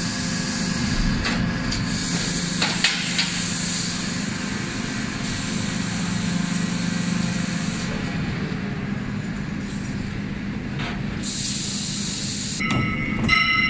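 Hydraulic die forging hammer and workshop machinery: a steady hum with three long bursts of hissing and a few sharp knocks. Near the end a steady, several-toned sound sets in.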